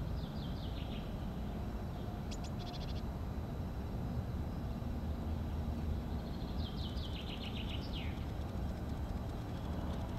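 Small songbird calling: a short series of quick falling chirps at the start, a rapid burst of ticks about two and a half seconds in, and a longer run of falling chirps near the end. All of it sits over a steady low background rumble.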